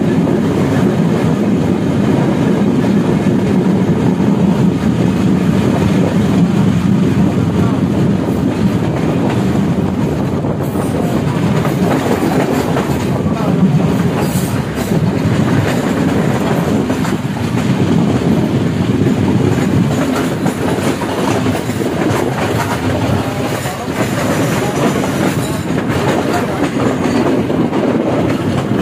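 Passenger train carriages running at speed, heard from a carriage window: a steady rumble of wheels on rail with a clickety-clack over the rail joints.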